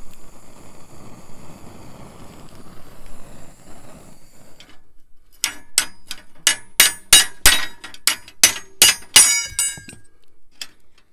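A handheld gas torch flame hissing, with wind on the microphone, then cutting off. Then a hammer strikes the bent steel cutter bar of a New Holland 451 sickle bar mower about a dozen times, roughly three ringing blows a second, to straighten the bent section after heating it.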